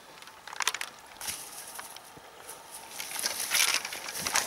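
Rustling and crackling of dry grass in uneven bursts, growing denser and louder over the last second and a half.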